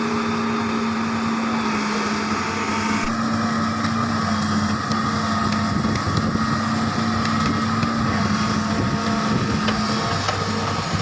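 Excavator's diesel engine running steadily with an even hum, with a hiss above it that drops away suddenly about three seconds in.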